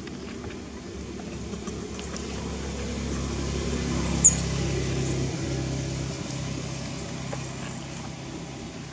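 A motor vehicle's engine hum passing by, swelling toward the middle and fading again. A brief sharp high squeak sounds about halfway through.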